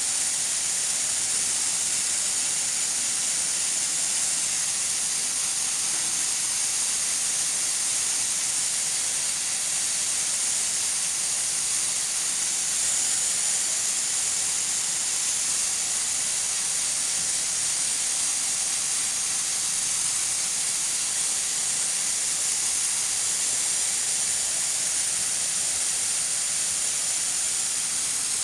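Nigro pressure cooker with steam hissing steadily out past its weight valve, a continuous high hiss with a faint steady tone under it.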